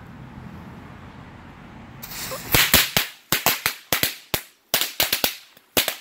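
A strip of old crimped lady finger firecrackers going off: a brief hiss about two seconds in, then a rapid, uneven string of sharp bangs lasting about three and a half seconds.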